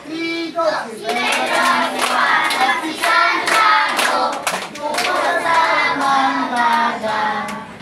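A group of children singing together with handclaps.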